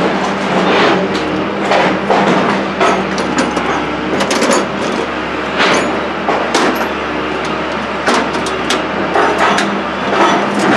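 A steady motor drone runs throughout, with scattered sharp metallic clanks and clicks over it.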